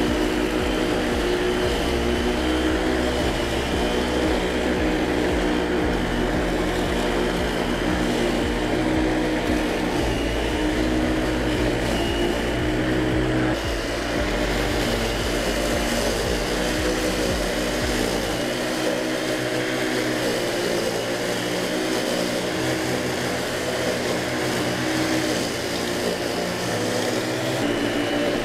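WORX WG779E.2 40 V cordless electric lawn mower running steadily as it cuts long, thick grass, with background music over it.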